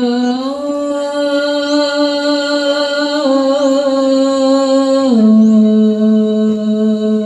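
A woman's voice singing long held notes of a sholawat unaccompanied, the hadroh frame drums silent. The pitch steps up about half a second in and drops lower near the end.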